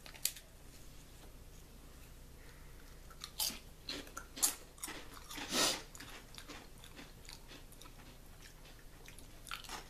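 Thin, flat Calbee Potato Fry barbecue potato chips being snapped and bitten: a short snap just after the start, then several crisp crunches a few seconds in, the loudest and longest a little past the middle.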